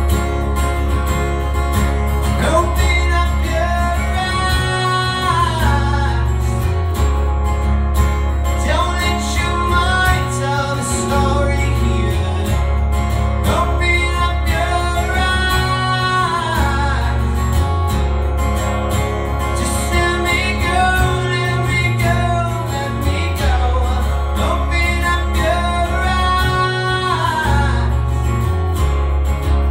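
Live performance of a rock song on guitar, with a steady low bass and a melodic line that rises and falls every few seconds.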